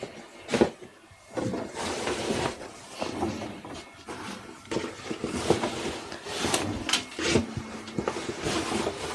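Clothes being pulled from a bag and pushed into a front-loading washing machine's drum: fabric rustling on and off, with a few sharp knocks.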